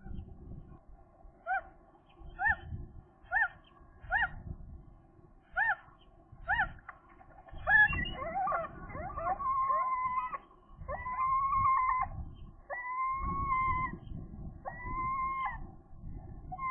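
Gull calling at the nest. A series of short, clipped notes is followed about eight seconds in by a jumble of overlapping notes, then by long, drawn-out wailing calls, each about a second long and repeated several times. A low rumble runs underneath.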